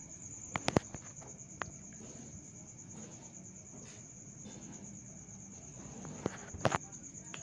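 Steady high trilling of crickets, with a few sharp clicks about half a second in and again near the end.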